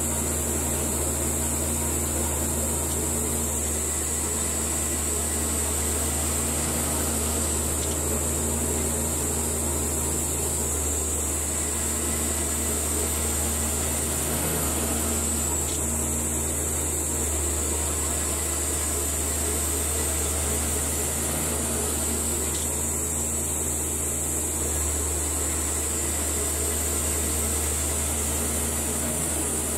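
Baker Model 3665D portable bandsaw mill running steadily, its band blade sawing lengthwise through a squared log, with an even hum and a high hiss.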